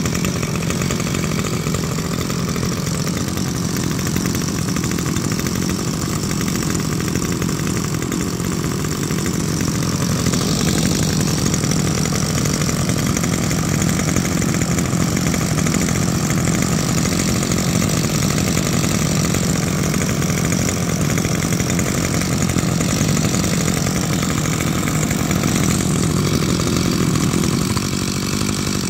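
Maruyama 32cc two-stroke brush cutter engine idling steadily on test, running a little louder from about ten seconds in.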